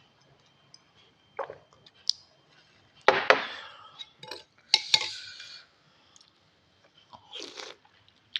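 Cutlery clinking against a bowl with the sounds of eating noodle soup, the loudest clatters about three and five seconds in.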